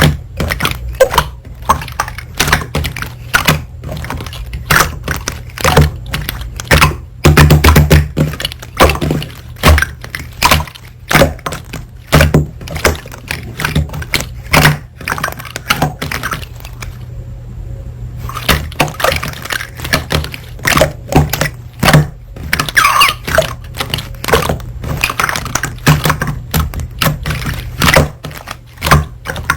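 Slime squeezed and pressed by hand, making a dense run of irregular popping and clicking crackles over a steady low hum, with a brief lull about seventeen seconds in.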